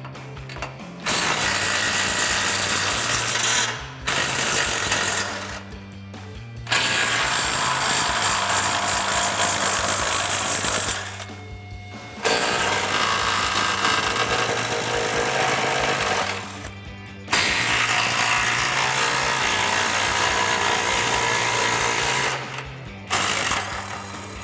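DeWalt cordless impact wrench with a 15 mm socket hammering the front sway bar mounting bolts loose, in several runs of a few seconds each with short pauses between.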